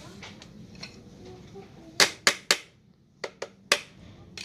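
Six sharp taps of hard objects striking: three in quick succession about two seconds in, then three more about a second later.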